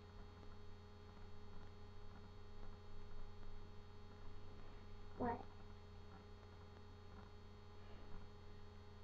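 Steady low electrical hum with faint rustling, broken about five seconds in by a single short voice sound.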